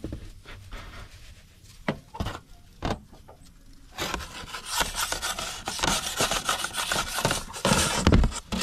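A few light knocks, then from about four seconds in a long rough scraping of a wooden pizza peel rubbing and sliding against the mouth of a charcoal pizza oven as a pizza is launched.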